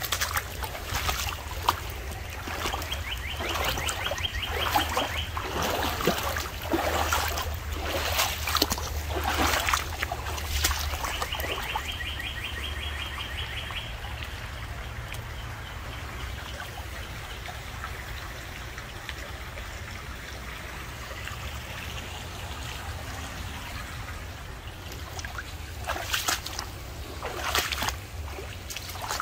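Shallow creek water splashing and sloshing around wading steps, busiest in the first ten seconds and again near the end, with water trickling steadily in between. A high, rapid trill sounds twice, briefly.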